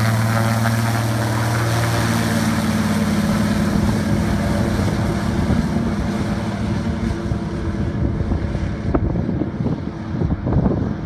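Single-engine floatplane on its takeoff run at full power: its engine and propeller drone as it passes close, then fade into a rushing noise as it speeds away over the water. Wind gusts on the microphone near the end.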